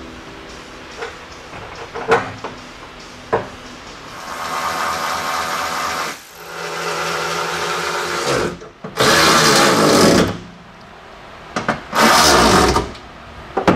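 Power drill running in several bursts, with a few knocks of handling in between, as the ice tank is fixed into the trunk floor. In the two loudest bursts, about nine and twelve seconds in, the motor's pitch sinks under load.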